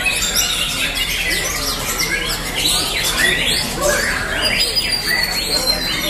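Several white-rumped shamas (murai batu) singing at once in competition: dense, overlapping runs of rapid high whistles and sweeping notes.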